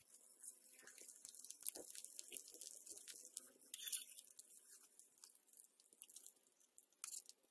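Battered fish frying in hot oil in a small camping pan: a faint sizzle of scattered crackles and pops, with a louder pop about four seconds in.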